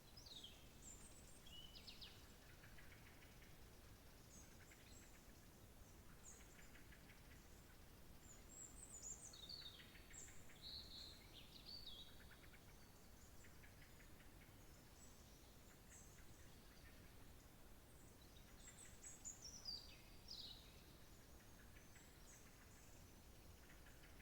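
Faint birdsong: quick high chirps and short falling whistles, coming in three bouts, about a second in, around ten seconds in and near twenty seconds, over a low steady background hiss.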